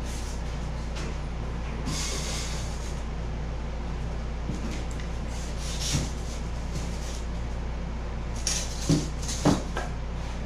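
Steady low hum with scattered light knocks and rustling as rigid foam-board strips are handled on a wooden workbench. A couple of sharper knocks come near the end.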